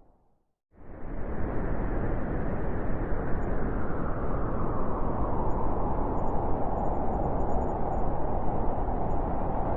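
Wind blowing steadily: an even rushing noise that cuts in abruptly less than a second in, after a brief moment of silence.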